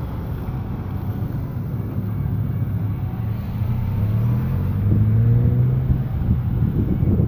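Road vehicle engine accelerating, its pitch rising for a few seconds and loudest about five seconds in, over a steady low traffic rumble.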